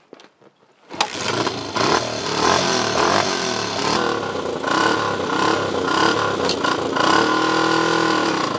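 Hartford VR125 Velocross 125 cc four-stroke single-cylinder motorcycle engine coming in suddenly about a second in and running loudly with varying revs; near the end the revs dip and then rise again as it pulls away.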